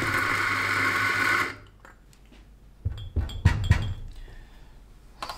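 Eureka Mignon espresso grinder's motor running as it grinds a timed 13-second dose into the portafilter, cutting off about a second and a half in. A few low knocks follow about a second later.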